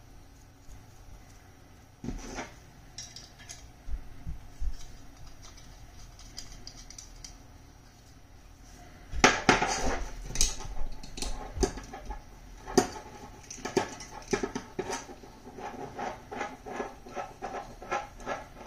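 Small metal coaxial connectors being handled and fitted together by hand, with an F-female to SMA-male adapter going onto a fiber-optic receiver. A few scattered clicks and taps come first, then from about nine seconds a dense run of quick metallic clicks and rattles.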